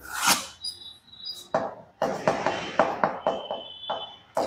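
Chalk writing on a blackboard: a run of quick, irregular scratchy strokes and taps as a column line and heading are drawn, busiest in the second half.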